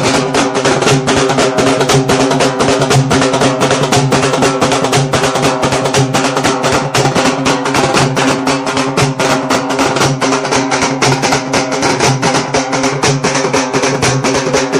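Music with a fast, steady drumbeat over sustained instrumental tones.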